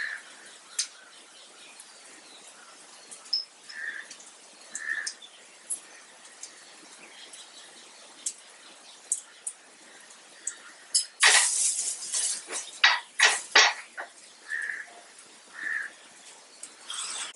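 Slotted spatula scraping and stirring curry leaves and spices in a nonstick frying pan, in a run of quick strokes about eleven seconds in, with scattered light clicks. Short bird chirps come in now and then.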